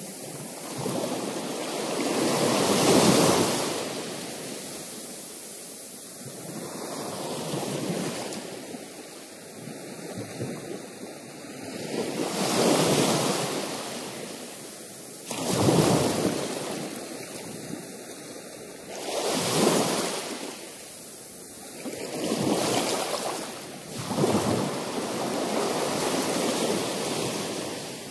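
Ocean surf washing against shoreline rocks, swelling and fading every few seconds as each wave surges in.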